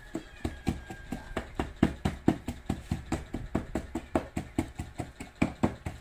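Wooden pestle pounding chili and garlic in a mortar: a steady rhythm of knocks, about four a second.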